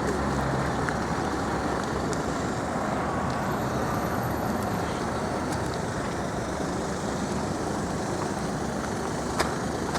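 Steady road traffic noise, with a sharp click about nine seconds in.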